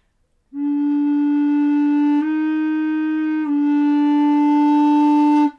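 Modern three-piece tenor recorder, with its more conical bore, holding one low note steadily for about five seconds. The pitch nudges slightly higher in the middle and then back. The note sounds clean, with no wolf-tone warble.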